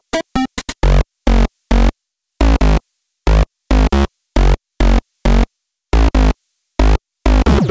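Electronic music: chopped, stuttering sample stabs with heavy bass, each cut off by a hard silence, about two a second.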